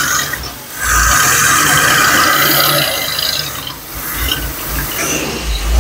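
Vintage motorhome's engine running, under a loud rushing hiss that drops away briefly twice.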